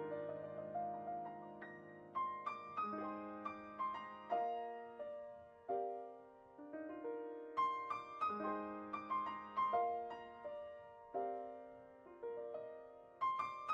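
Solo piano music: a slow, gentle melody of single struck notes and chords, each note dying away.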